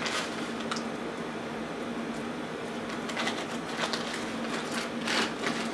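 Hardware bolts being picked out of a plastic bag by hand, with rustling and a few light clinks, over a steady low hum.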